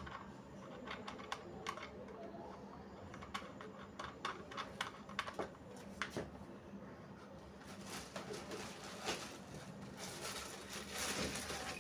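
Faint, scattered clicks and taps of a ring light's small mounting parts being handled and fitted, as a small screw knob goes into the ring light's hole.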